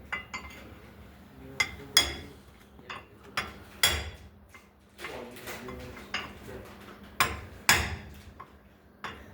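Irregular metallic clinks and knocks of hand tools and loose steel parts handled during work on a truck's steering linkage, about a dozen sharp strikes with the loudest about 2, 4, 7 and 8 seconds in.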